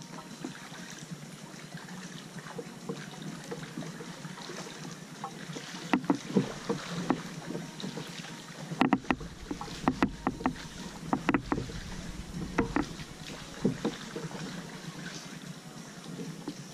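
Kayak being paddled: the paddle blades dip and splash in the water at uneven intervals, with a few sharper knocks, over a steady background hiss. A low rumble of wind on the microphone comes in for a few seconds midway.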